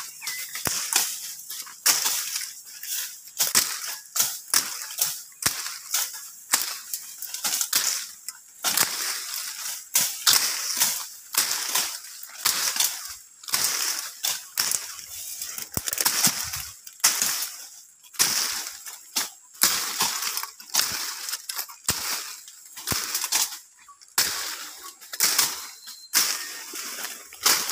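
Machete hacking through brush and stems: repeated sharp chops about once a second, with leaves and branches rustling between strikes.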